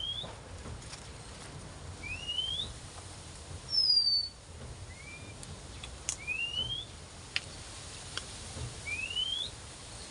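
A bird calling: a short rising whistle repeated four times, about every two to three seconds, with a louder falling whistle about four seconds in.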